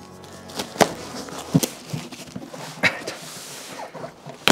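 Gloved hands handling a cardboard shipping box to open it: a few sharp knocks and taps on the cardboard about a second apart, the last the loudest, with a brief rasp of cardboard or tape about three seconds in.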